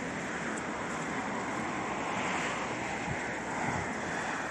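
Steady rushing noise of wind and sea surf, even and unbroken.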